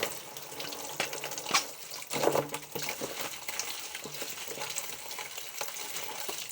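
Hand-washing dishes: a steady hiss of water with a few clinks and knocks of dishes being handled, about one, one and a half and two seconds in.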